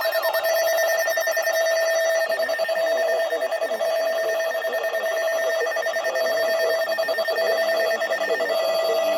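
Electronic emergency alert tone: a steady tone with rapid fluttering pulses, like a telephone ringer, that changes character about two seconds in and again near the end.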